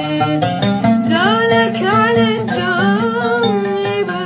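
A boy singing a melismatic vocal line with gliding, wavering notes while accompanying himself on the oud, plucking notes beneath the voice.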